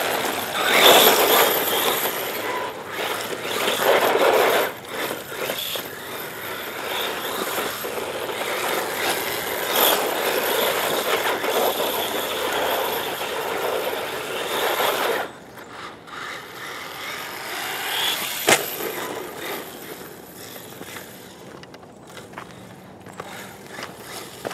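HobbyKing Rattler 1/8-scale 4WD brushless buggy running on a 2S battery: its tyres and drivetrain rattle and scrape over hard frozen dirt, with a thin high whine. The sound is loud for about the first fifteen seconds, then drops away as the car runs off. There is one sharp knock about eighteen seconds in.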